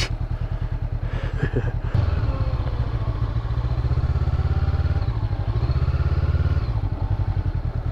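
Honda CB500X's parallel-twin engine running at low speed with a steady, even pulsing. It gets a little louder from about two seconds in and eases back near the end.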